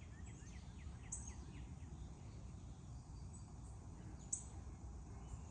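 Wild birds chirping outdoors: a run of quick falling chirps in the first second, then two sharp high chips, the second about four seconds in and the loudest, over a faint low steady rumble.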